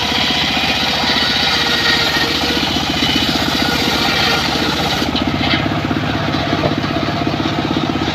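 Engine-driven circular saw for cutting wood, its motor running with a fast steady pulse; a higher hissing noise over it stops about five seconds in, leaving the engine running on its own.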